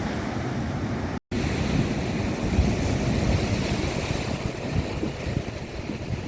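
Sea surf washing on the shore, with wind buffeting the microphone in a heavy low rumble; the sound drops out completely for an instant about a second in.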